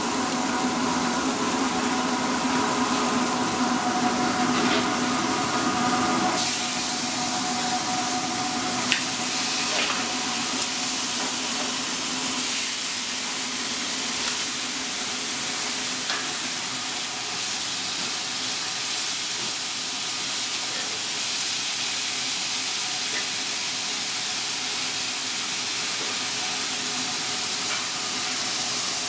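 Marinated steak sizzling over the flames of a gas grill and on a flat-top griddle: a steady frying hiss. A low steady hum runs under it for the first six seconds or so, and there is one sharp tap about nine seconds in.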